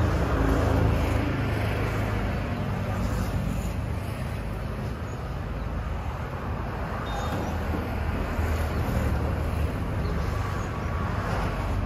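Steady low rumble of running vehicles and road traffic.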